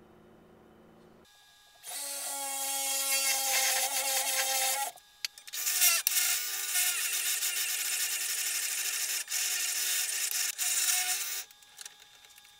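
Benchtop drill press running and boring down through a stack of plywood pieces, the motor's whine under the cutting noise. It drills twice: a few seconds from about two seconds in, then after a brief pause a longer run that stops near the end.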